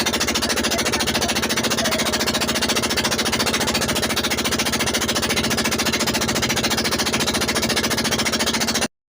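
Motorized bangka boat engine running steadily at a fast, even pulse, loud and close, cutting off abruptly near the end.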